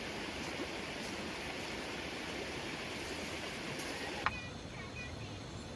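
A steady rushing noise that cuts off abruptly with a click about four seconds in. Quieter sound follows, with a few short high chirping notes.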